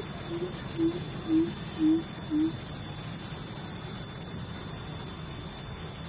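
Coucal giving a run of about six deep hoots, roughly two a second, each a little lower than the one before, ending about halfway through. Behind it insects keep up a steady high-pitched drone, the loudest sound throughout.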